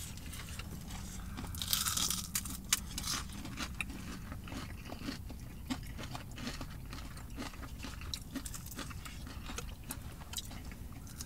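Close-up mouth sounds of people biting and chewing crispy fried chicken wings: scattered small crunches and wet clicks, with a louder crunch about two seconds in. A low steady hum runs underneath.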